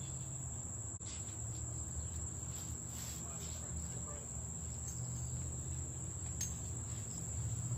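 Steady high-pitched insect chorus with an unbroken drone, over a low outdoor hum.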